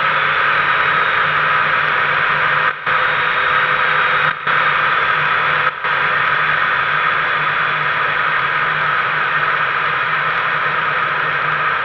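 Two-stroke Rotax engine and pusher propeller of a flex-wing microlight trike running steadily in flight, buried in heavy wind rush on the microphone. The sound cuts out briefly three times in the first half.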